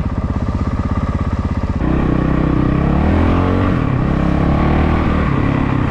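Honda CRF450RL's single-cylinder four-stroke engine through a full FMF exhaust, running at a low, even thump, then about two seconds in the throttle opens and the revs rise and fall as it pulls.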